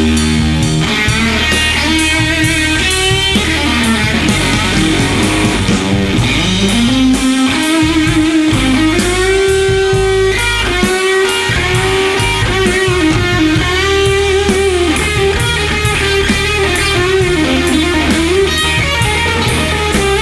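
Blues-rock band playing an instrumental passage: an electric guitar lead with bent, sustained notes over bass and drums keeping a steady beat.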